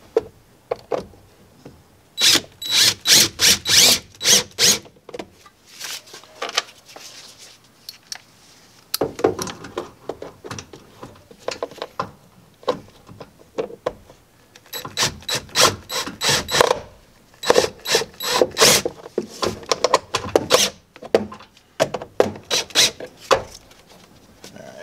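Cordless drill driving self-tapping screws into sheet metal, in four bursts of a few seconds each, every burst a rapid train of clicks.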